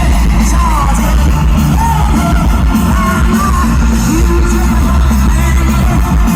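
Live rock band playing loud, with a heavy, steady bass, electric guitar and wavering voices or sung lines over it.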